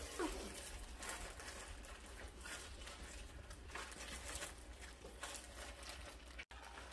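Soft, irregular squelching of fresh strawberries being crushed and kneaded by hand in a stainless steel pot, the first mashing step of homemade strawberry jam.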